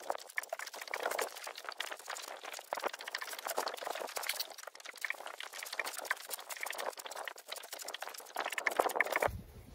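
A wet gill net and its rope being hauled in over the side of a small boat: a dense, continuous crackle of drips, small splashes and rubbing, a little louder near the end.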